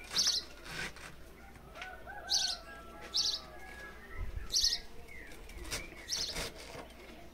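A small bird chirping again and again: five short, high chirps about a second apart. Under it are faint knocks from a knife slicing through pineapple.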